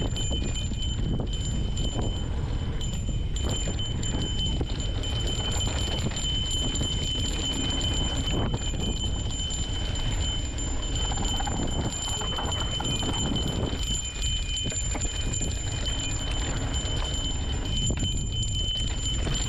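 Mountain bike descending a rough dirt singletrack at speed: wind rumbling on the microphone, with the bike's chain and frame rattling and clicking over the bumps and a steady high whine underneath.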